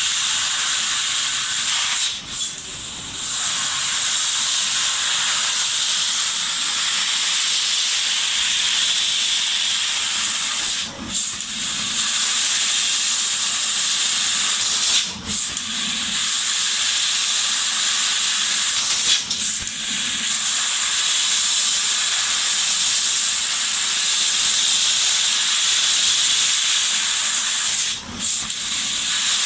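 Laser cutting machine's assist gas hissing steadily at the cutting head. It cuts off briefly about five times, each break lasting a fraction of a second.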